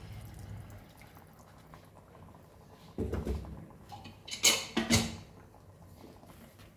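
Paya soup poured in a thin stream from a pot into a pan of thick curry masala at first. A low thud comes about three seconds in, then a wooden spatula scrapes and stirs in the pan twice around the five-second mark.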